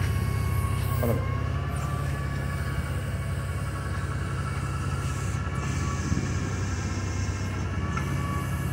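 2003 Clark forklift's engine running steadily, a low even hum.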